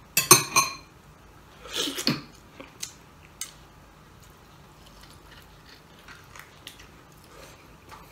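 Eating sounds from a person getting the marrow out of a beef shank bone: two short loud mouth or fork-on-bone sounds in the first two seconds, the first the loudest, then quiet chewing with a few light clicks.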